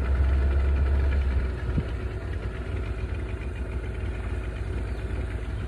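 Small boat's motor running steadily, with a low hum that drops in level about a second and a half in.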